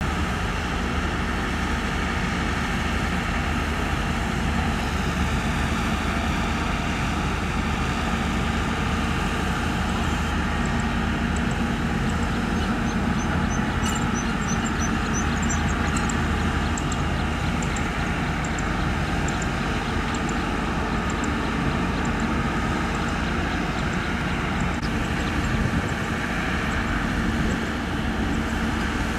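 Hyundai long-reach excavator's diesel engine running steadily while the machine sits sunk in deep mud, with a run of faint high ticks around the middle.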